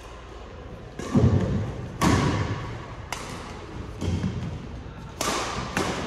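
Badminton doubles rally: a series of sharp racket strikes on the shuttlecock, roughly once a second, echoing in a large hall. A heavy thud about a second in, from a player's feet or body hitting the court.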